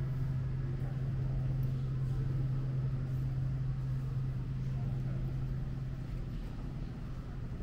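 A steady low hum, with faint voices in the background.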